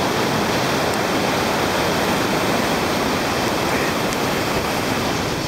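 Whitewater rapid rushing steadily over rocks on a river: a loud, even noise of churning water with no break.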